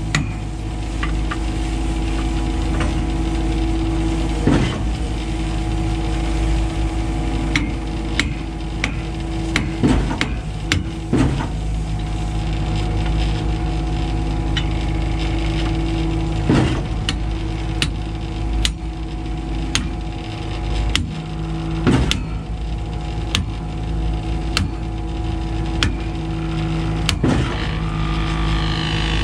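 Concrete pump truck's engine running steadily, with irregular sharp knocks and clanks from metal parts.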